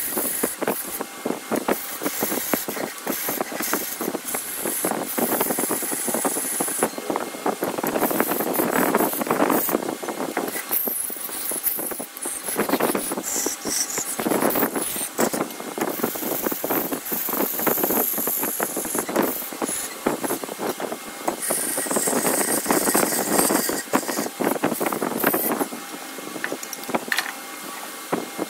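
Wood being turned on a lathe: a tool cutting the spinning blank, a rough scraping noise full of fine crackles that swells and eases every few seconds.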